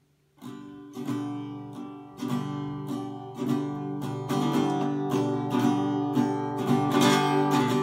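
Acoustic guitar strummed in steady chords as a song's intro, starting about half a second in and getting a little louder toward the end.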